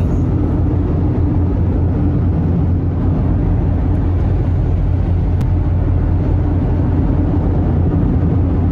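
Steady road noise inside a car cruising on a dry freeway: a constant low tyre rumble and engine drone.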